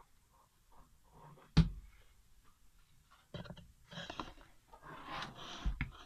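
Workshop handling sounds on a plastic planer housing: a single sharp knock about a second and a half in, then a few seconds of irregular rubbing noise as the housing is cleaned, with small knocks near the end.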